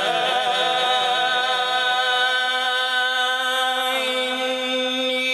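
A man's solo Quran recitation (tajweed) holding one long melodic note on the word "Rabbana", wavering up and down in ornament and then settling into a steady held tone about four seconds in.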